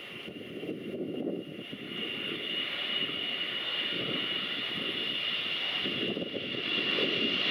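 Boeing 777-200 airliner's twin turbofan engines on landing approach: a steady high fan whine over a deep rumble, growing louder as the jet comes closer.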